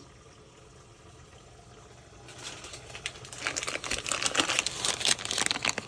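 Quiet for about two seconds, then rapid crackling and clicking that grows louder: the handling of a container or its packaging as the stored kodampuli paste is brought out.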